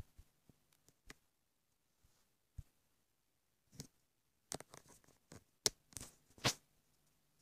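Fingertips tapping on a tablet's touchscreen while typing, faint and uneven, with a few louder short scrapes or rustles in the second half.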